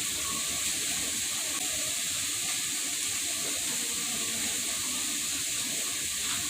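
Chicken frying in a hot pan: a steady, even, high sizzle.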